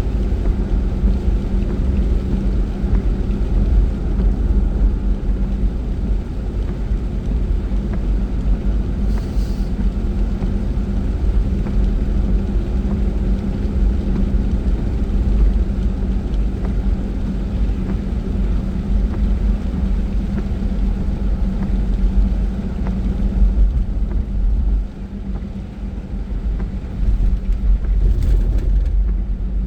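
Steady low rumble of a car's engine and tyres heard from inside the moving car, with a constant hum. It eases briefly about 25 seconds in, then picks up again.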